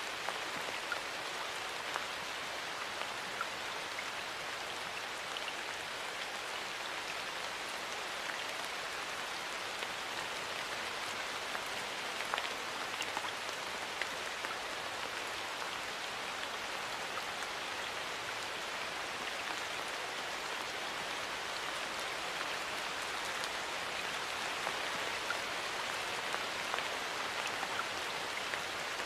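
Steady rain falling, with many individual drops ticking on a surface through the hiss of the downpour.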